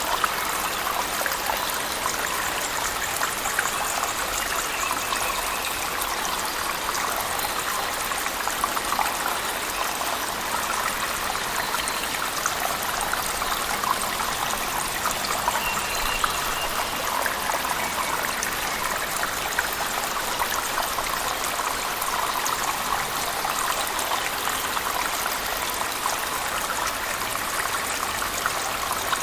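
A waterfall in a cave, mixed with heavy rain: a steady rush of falling water, speckled with many small drop ticks, with no change in level.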